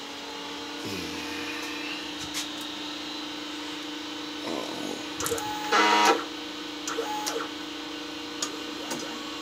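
Steady machine hum from the powered-up CNC mill setup, with a few faint clicks and a brief louder sound about six seconds in.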